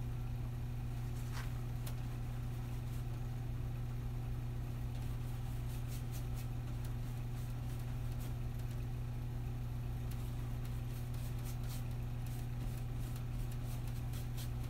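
A steady low hum, with faint, scattered soft scratches of a paintbrush on canvas.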